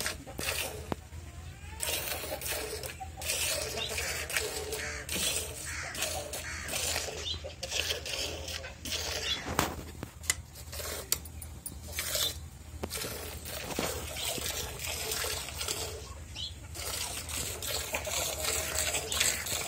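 Hand-milking: repeated squirts of milk hissing into the frothy milk in a metal bucket, stroke after stroke.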